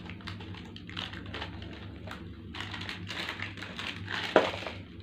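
Plastic wrapper of a surprise snack packet crinkling and rustling as it is handled and emptied by hand, with a sharp knock about four seconds in and a low steady hum underneath.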